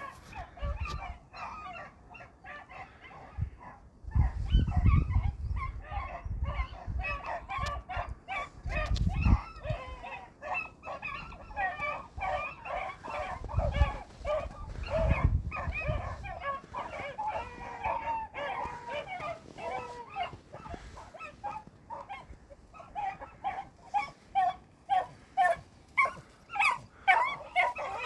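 A pack of rabbit hounds baying and yelping together, the typical sound of dogs running a rabbit's trail, with several voices overlapping throughout. Near the end the barks fall into a rhythm of about two or three a second. A few low rumbles come and go, the loudest about four seconds in.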